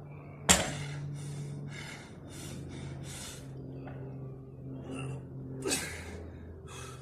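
A deadlifter breathing hard and fast between reps, a quick run of sharp breaths followed by another heavy breath near the end, under the strain of a high-rep set. About half a second in there is a single loud knock as the loaded barbell touches down on the brick ground, and a steady low hum runs underneath.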